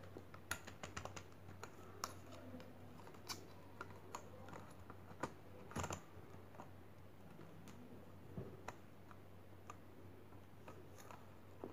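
Faint, irregular clicks and taps from handling a KBOOM aluminium camera tripod: its legs and plastic flip-lock leg clamps knocking and clicking under the hands, loudest about six seconds in.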